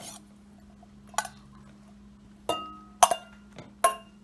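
Stainless steel bowl clinking against a glass mixing bowl as cooked bowtie pasta is tipped and knocked out of it: about five sharp clinks, the louder ones with a short metallic ring.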